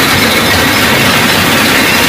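Electric-motor, belt-driven roller machine running loud and steady as the rim of a stainless steel tandoor drum turns through its rollers.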